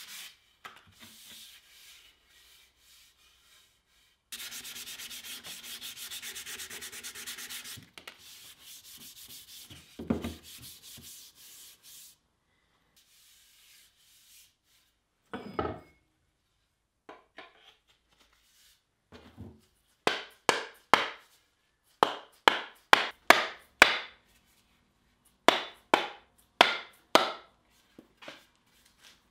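Sandpaper rubbed back and forth by hand along a wooden tool handle. Later come a few scattered knocks, then three runs of sharp mallet blows about two a second on the handle, driving the pickaroon's forged head onto it.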